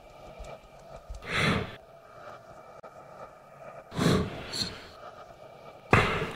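A group of dancers breathing out audibly together, three sighing exhalations about two and a half seconds apart, the last the loudest, over a faint steady room hum.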